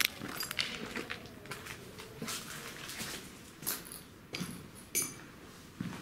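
Footsteps on a floor strewn with broken plaster and ceiling panels: scattered crunches and crackles, with a few louder scuffs in the second half.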